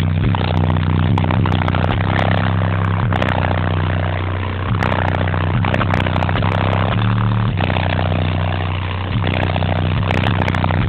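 Loud bass notes from a car audio system's two Fi BTL 18-inch subwoofers, held steady and stepping to a new pitch every second or two.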